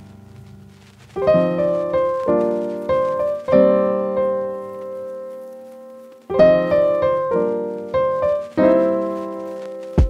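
Background piano music: after a quiet first second, chords are struck in two short phrases, with a long held chord ringing out between them.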